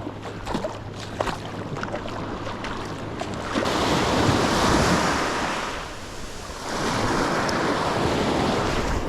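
Small waves breaking and washing up on a sandy beach, swelling up twice in the latter half, with wind buffeting the microphone.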